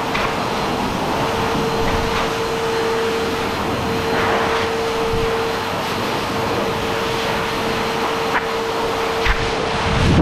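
High-velocity dog grooming dryer blowing air through its hose nozzle into a thick coat. It makes a steady rushing noise with a constant hum.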